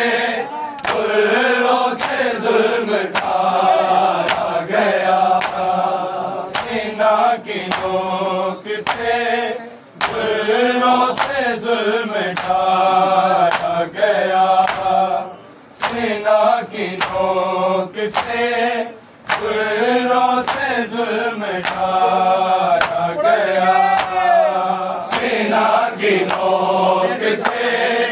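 A group of voices chanting a noha, a Shia lamentation, in held, sliding phrases. Sharp, even slaps about once a second keep time under it, typical of matam chest-beating, with short breaks between some lines.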